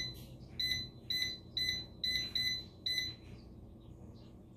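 Instant air fryer's control panel beeping: about eight short beeps in the first three seconds, one per button press as the cooking time is set, over a steady low hum.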